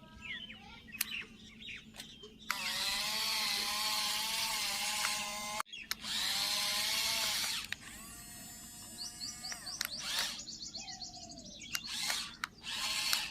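Small electric gear motors of a remote-control construction toy whirring in bursts, each several seconds long with a wavering pitch, then shorter bursts. Faint chirps come in between.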